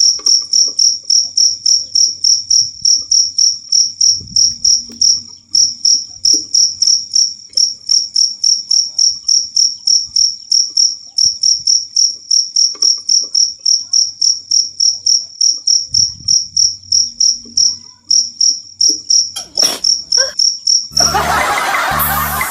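Cricket chirping in a steady rhythm, about three short high chirps a second, with a couple of brief breaks. Near the end the chirping stops and a louder, noisy sound cuts in.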